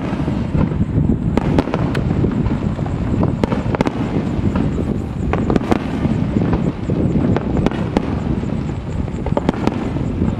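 Fireworks display: a rapid barrage of aerial shells bursting overhead, many sharp reports overlapping into a continuous rumble.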